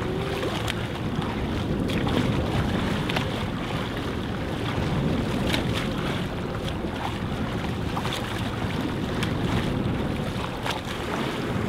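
Wind buffeting the microphone over a choppy sea, with waves splashing, making a steady rushing noise.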